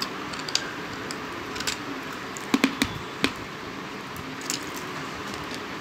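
Irregular crisp crunches of a hard piece of red clay being bitten and chewed, with a quick run of three snaps about halfway through. It is the hard clay's crunch, which sounds better than soft clay's.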